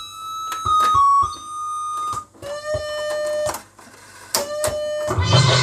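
Cassette deck's built-in electronic tune: a simple melody of single held notes, broken by sharp clicks as a cassette is flipped and loaded and the piano-key buttons are pressed. A little before the end, music from the tape starts playing, louder and with strong bass.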